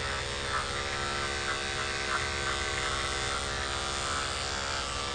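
Corded electric dog-grooming clippers with a #10 blade running with a steady hum, shaving the hair from an Airedale terrier's muzzle and beard.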